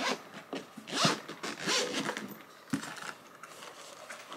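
Zipper on a hard-shell camera case being pulled open in several short, uneven strokes, with a light knock near the middle.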